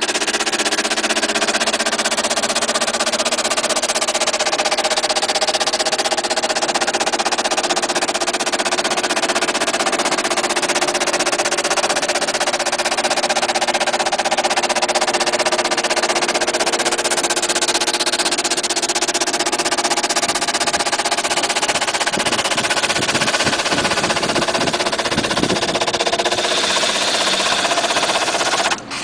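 Electric power sander running steadily on a veneered panel: a motor hum with an even hiss. It switches off near the end.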